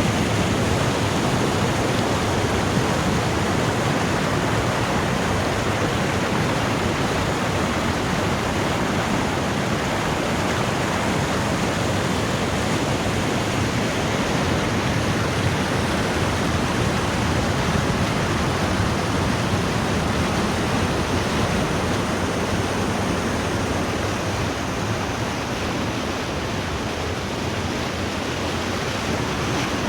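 Putna waterfall: water falling and rushing in a steady, loud roar of noise, easing slightly near the end.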